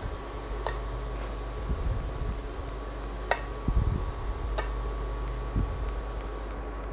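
Puri dough being rolled out with a rolling pin on a round metal rolling board: a few light clicks and soft knocks of the pin and fingers against the metal, over a steady background hum.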